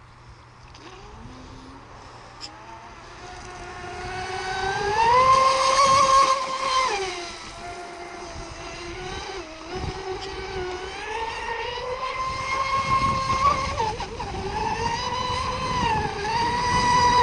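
Radio-controlled electric racing monohull boat running at speed: a high motor whine over rushing water that swells and climbs in pitch as the boat comes close, then falls and rises again several times as it slows and speeds up.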